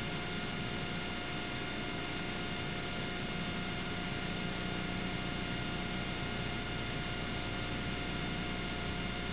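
Steady hiss with a low hum and a few faint, steady high tones: the open audio line of a live television feed carrying no commentary.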